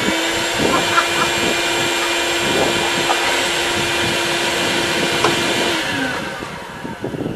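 Vacuum cleaner running steadily with a high whine and a few short knocks, then switched off and winding down about six seconds in.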